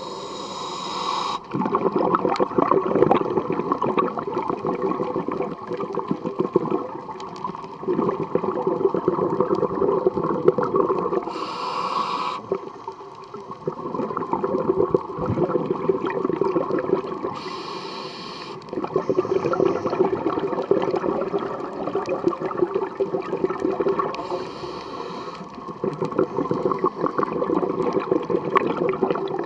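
Scuba diver breathing through a regulator underwater: four short hissing inhalations, each followed by several seconds of gurgling exhaled bubbles.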